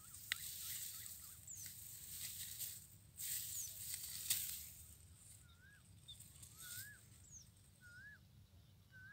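Quiet rice-field sounds. There is faint rustling in the dry stubble and a couple of small clicks. From about halfway on, an unseen animal gives a short rising-and-falling chirp roughly once a second, with a few fainter high chirps now and then.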